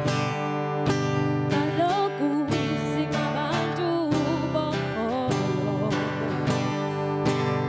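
Acoustic guitar strummed in a steady rhythm, with a singer's voice coming in over it about a second and a half in.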